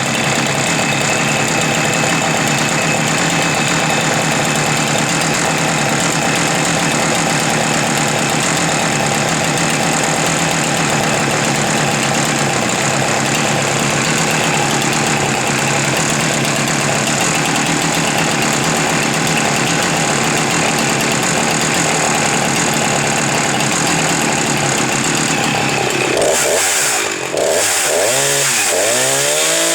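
Husqvarna 359 two-stroke chainsaw running at a steady speed. About 26 seconds in the sound dips briefly, then its tone starts wavering up and down.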